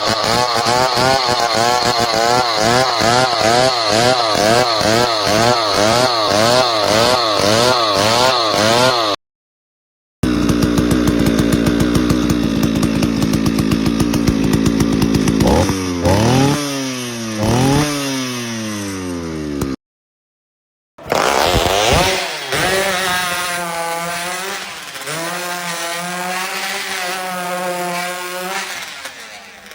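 Three chainsaw sound-effect clips in a row, split by two short dead-silent gaps. The first chainsaw runs with its pitch rocking up and down about twice a second. The second runs steadily, then revs up and down a few times. The third revs with a wavering pitch and fades near the end.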